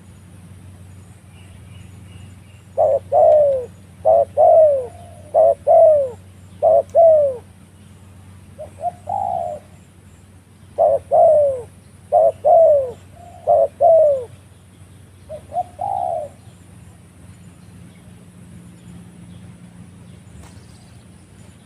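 Spotted dove cooing in two runs of repeated phrases. Each phrase is a short note followed by a longer falling coo, about one phrase every 1.3 seconds, and each run ends with a softer, shorter call. A steady low hum runs underneath.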